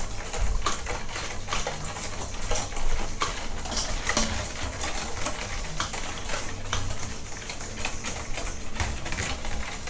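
Large metal spoon stirring a liquid marinade in a stainless steel bowl, scraping and clinking irregularly against the bowl as the sauces and sugar are mixed together.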